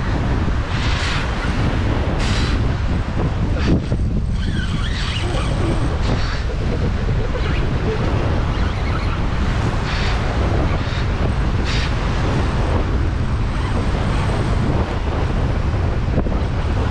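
Strong wind buffeting the microphone over rough surf surging and breaking against rocks, with short splashes of water now and then.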